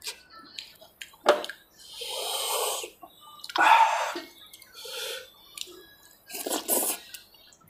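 Close-miked wet eating sounds of a person eating saucy curry and biryani by hand: lip smacking, slurping and sucking in several short bursts, with a few sharp mouth clicks.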